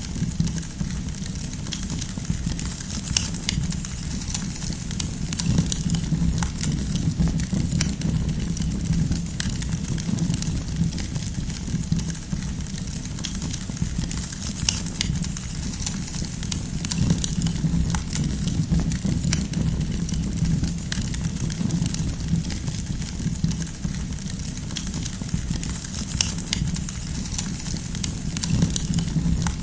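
Wood campfire crackling, with frequent small sharp pops scattered irregularly over a steady low rumble of the burning fire.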